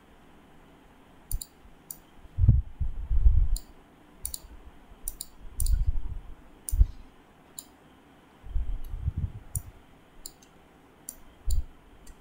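Sharp clicks of a computer input device, about fifteen scattered irregularly, as the on-screen whiteboard writing is selected and cleared. Several dull low thumps come in between, the loudest a few seconds in.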